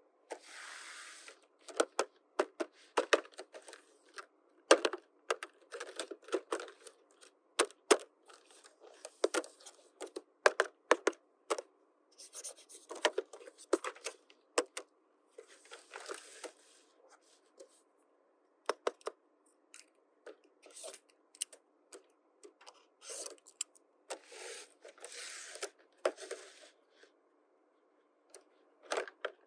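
Unboxing of a plastic toy playset: packaging rustling and tearing in short stretches, with many sharp clicks and taps of small plastic pieces being handled and set down.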